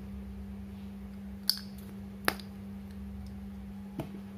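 Three short, sharp plastic clicks, the loudest about halfway through, from handling an EasyTouch uric-acid test-strip vial with its flip-top lid and code chip, over a steady low hum.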